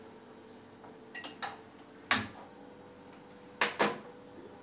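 A few sharp clicks and knocks of kitchen handling at a gas stove and counter: small ones about a second in, a sharp one at two seconds and a quick pair near the end, over a faint steady hum.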